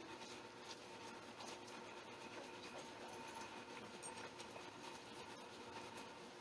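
Faint light scratching and ticking of schnauzer puppies' paws and claws as they pad about on carpet and a quilt, scattered and irregular, over a faint steady room hum.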